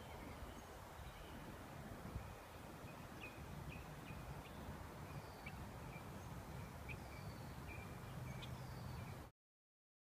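Faint outdoor ambience: a steady low hum of distant freeway traffic with birds chirping and whistling every second or so. The sound cuts off abruptly about nine seconds in.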